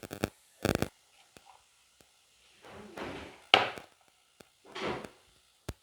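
Chopped banana stem being tipped into an iron pan: a few sharp knocks and clicks at the start, then three rustling, scraping pours of the pieces, and a short knock near the end.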